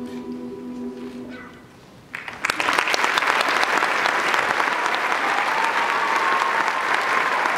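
A high school choir's final held chord fades away, and after a brief pause an audience breaks into sustained applause.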